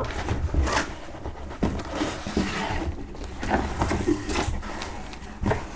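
Cardboard boxes being handled inside a cardboard shipping case: scraping and sliding as an inner case is pulled out, with a few light knocks spread through.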